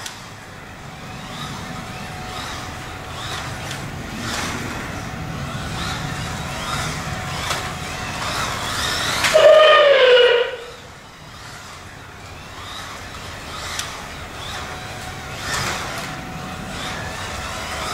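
Scalextric Aston Martin DBS slot car running laps, its 18,000 rpm electric motor whining. The whine is faint while the car is on the far side of the track, then rises and falls in pitch as the car passes close by about nine seconds in, over the car's rolling rattle along the plastic track.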